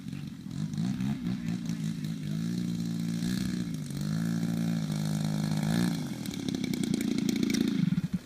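Single-propeller engine of a large radio-controlled model aerobatic plane, a Hangar 9 Extra 300, running at low throttle while it taxis on grass. The pitch rises and falls a few times as the throttle is worked, the sound grows louder as the plane comes closer, and the engine cuts off abruptly near the end.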